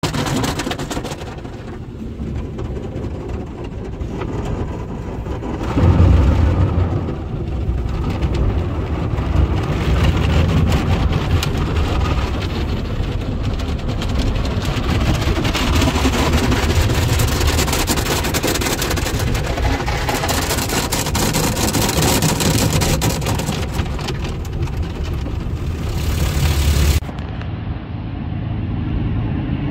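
Automatic car wash heard from inside a pickup truck's cab: water spray and soft-cloth brushes scrubbing over the windshield and side windows over a steady low rumble, with a loud surge about six seconds in. Near the end it cuts abruptly to outdoor wind noise.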